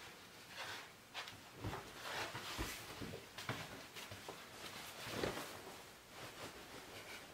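Faint, soft footsteps on a carpeted hallway floor, about one step a second.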